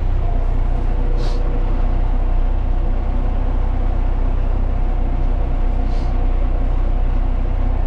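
Diesel tractor engine running steadily under load while towing another tractor in third gear, with two brief faint ticks, one about a second in and one near six seconds.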